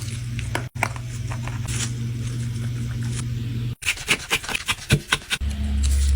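Small repair tools scraping and clicking against an iPhone as it is worked open, over a steady low hum. A run of irregular clicks and scrapes about four seconds in.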